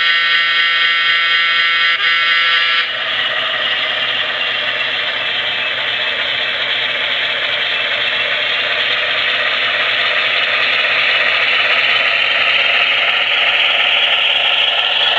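HO-scale Baldwin Centipede model diesel locomotive's Paragon2 sound system blowing its horn, a long blast then a short one ending about three seconds in. Then the locomotive's diesel engine sound runs steadily with the model's gear and wheel clatter as it pulls a train of boxcars, growing a little louder near the end as it passes close.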